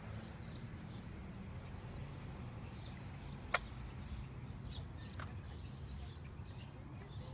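Quiet outdoor background: faint, scattered chirps of small birds over a low steady rumble, with one sharp click about three and a half seconds in.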